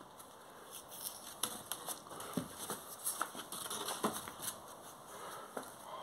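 Irregular soft clicks and rustles, handling noise from a handheld phone being moved about, with a few faint low knocks.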